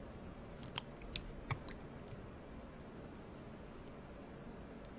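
A few small sharp clicks and wet ticks from chopsticks picking at and lifting slices of raw yellowtail amberjack sashimi, clustered in the first two seconds. One faint tick comes near the end over a low steady hiss.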